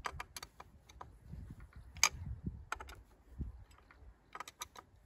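Scattered small clicks and ticks of a metal key turning the screws that fasten the plastic blade deflector to a brush cutter's gearhead, with the sharpest click about two seconds in.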